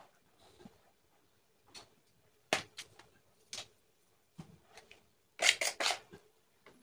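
Metal spoon clicking and scraping against a bowl while serving food out onto a banana leaf. There are a few scattered single clicks, then a quick run of loud clinks near the end.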